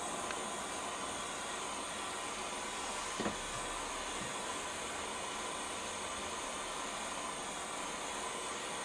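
Jeweller's torch flame hissing steadily while heating a silver ring on a soldering block to flow eutectic silver solder. A faint knock about three seconds in.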